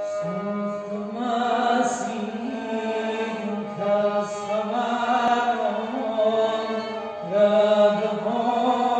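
Slow, melancholy Lori song: a male voice singing long, wavering phrases with kamancheh, over a steady low drone.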